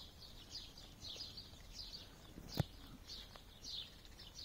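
Faint high bird chirps, each a short falling note, repeated about twice a second, with one sharp click or knock about two and a half seconds in.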